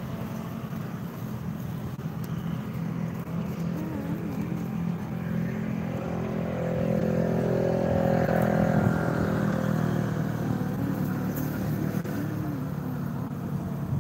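A heavy road vehicle's engine running as it approaches, grows loudest about eight to nine seconds in while passing close by, then fades away.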